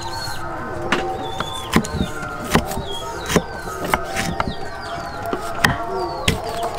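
Kitchen knife cutting through limes and knocking on a thick wooden chopping block, about eight sharp knocks at an uneven pace.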